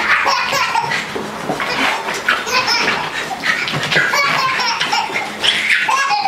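A baby laughing in repeated short bursts of high-pitched laughter.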